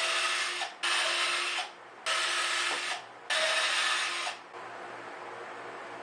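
Power drill boring four small holes through half-inch plywood, in four runs of about a second each with a short pause between them, the motor whining steadily during each run.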